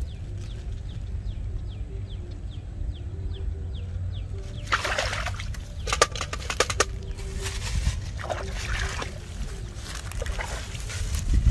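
Shallow marsh water sloshing and splashing as a person wades and handles a frog trap, in several rough bursts from about five seconds in. Before that, a quick series of short, high, falling chirps repeats a few times a second.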